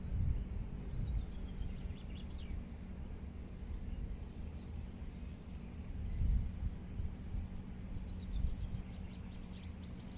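Wind buffeting the microphone as a low rumble, with a bird singing short runs of high notes twice: about a second in and again near the end.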